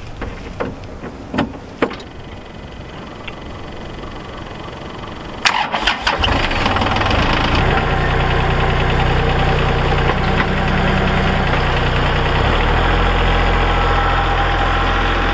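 A few knocks, then a tractor engine cranks and catches about five seconds in and settles into a steady idle.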